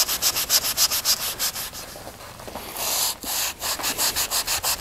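Sanding block rubbed over a wooden board in quick back-and-forth strokes, several a second, wearing down the raised ridge at the edge of a dried photo transfer so it blends into the wood. The strokes ease off about two seconds in and pick up again about three seconds in.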